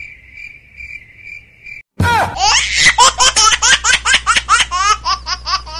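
Cricket chirping sound effect, an even high chirp about twice a second; about two seconds in, a loud, high-pitched fit of laughter cuts in, a fast run of falling ha-ha's about five a second.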